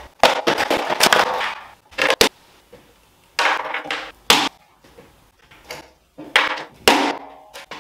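Handling noises of a flat-pack particleboard cabinet being assembled: irregular sharp knocks and clicks with bursts of scraping in between, including the pressing of its plastic wall-hanging brackets.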